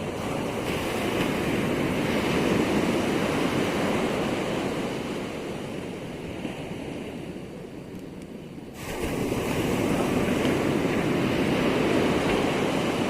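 Ocean surf washing in: a continuous rush of breaking waves that swells, eases off, then surges up again sharply about nine seconds in.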